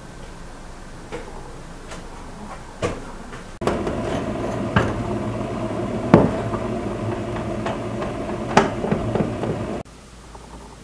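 Kitchen handling noise: a few sharp knocks and clatters, the loudest about six seconds in, from a dough-laden metal baking tray being handled, over a steady hum. The hum and knocks start abruptly about a third of the way in and drop away near the end.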